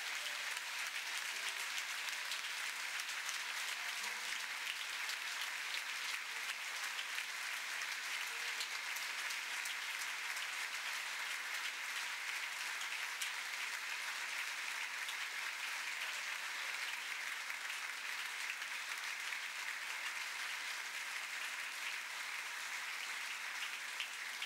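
A congregation applauding: steady, dense clapping by many hands that keeps up without a break.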